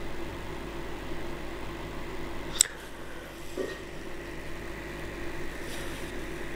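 Steady low hum with one sharp click about two and a half seconds in and a softer knock about a second later.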